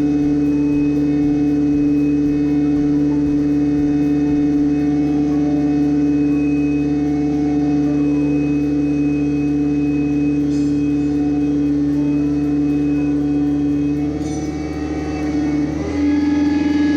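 Broderson IC-80 carry deck crane's little four-cylinder Ford engine running steadily under load, with a strong steady hum from the machinery. The sound dips and then changes pitch about fourteen to sixteen seconds in, as the load on the engine changes.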